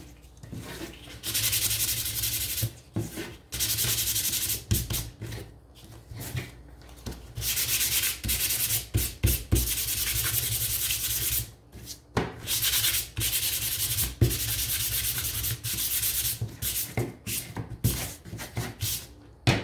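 Hand sanding thin stained wooden strips with sandpaper to smooth the dried stain: rapid back-and-forth rubbing in spells of one to three seconds with short pauses between, and a few light knocks as the pieces are handled.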